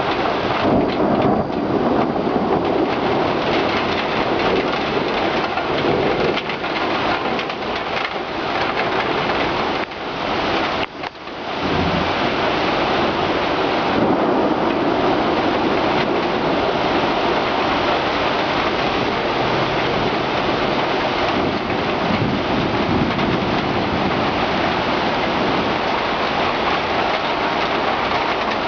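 Heavy thunderstorm: rain pouring down and splashing, with thunder rumbling. The sound breaks off briefly about eleven seconds in.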